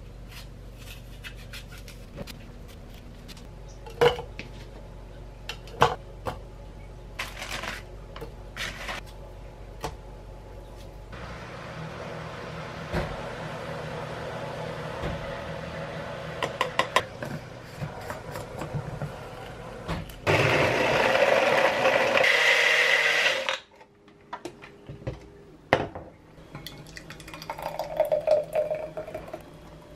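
Smoothie making: a knife knocking on a plastic cutting board a couple of times, then a personal blender running for about three seconds before cutting off suddenly, and a thick smoothie poured into a glass near the end.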